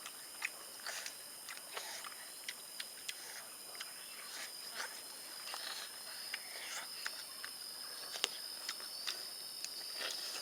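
Steady high-pitched insect drone, with scattered sharp clicks and snaps.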